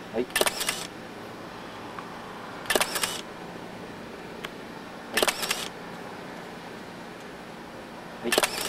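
Single-lens reflex camera on a tripod taking four shots, about one every two and a half seconds; each release is a short cluster of clicks lasting about half a second.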